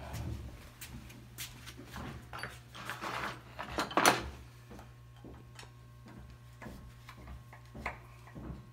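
Workshop handling noises: scattered knocks and clicks of wooden blocks and tools being picked up and set down on a bench, the loudest about four seconds in, fewer after that, over a steady low hum.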